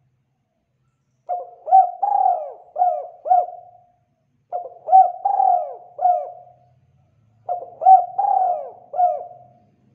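Dove cooing: three repeated phrases of about five short notes each, every phrase a little over two seconds long, with brief pauses between.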